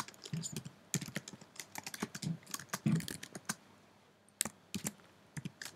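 Typing on a computer keyboard: irregular runs of quick key clicks, with a short lull a little past halfway.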